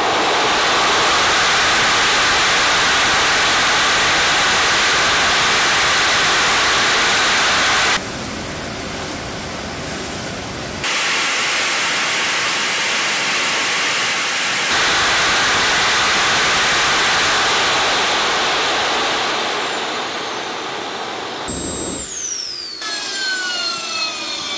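Small model turbine jet engine running hard on diesel fuel: a loud roar with a high, steady whine, broken by a few abrupt jumps in level. From about two-thirds of the way in the whine glides down as the engine is throttled back, and it spools down near the end.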